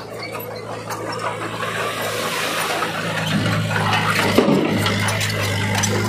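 Diesel engines of a tipping dump truck and a small Komatsu bulldozer running, with a broad rushing noise as the truck pulls forward away from its dumped load of soil. A steady low engine hum grows louder about three seconds in.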